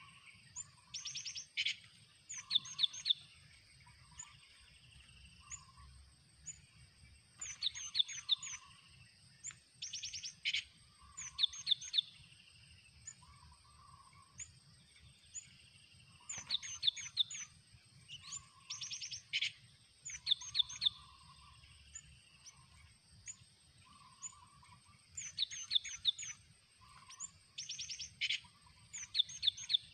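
Cinereous tits (gelatik batu) calling: quick runs of sharp, high notes, repeated every second or two, with a caged decoy bird drawing in wild ones. A steady high-pitched whine runs underneath.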